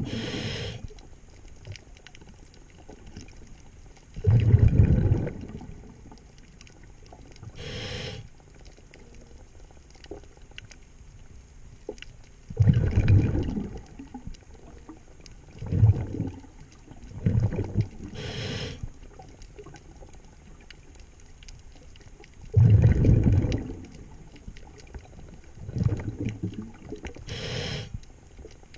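Scuba diver breathing through a regulator underwater. Short hissing inhales come every nine or ten seconds, and between them come low, rumbling bursts of exhaled bubbles.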